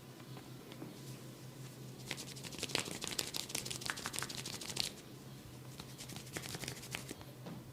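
Hands rubbing and scratching through oiled hair on a scalp: fine rapid crackling that thickens about two seconds in, runs for some three seconds, then thins to scattered clicks. A steady low hum lies underneath.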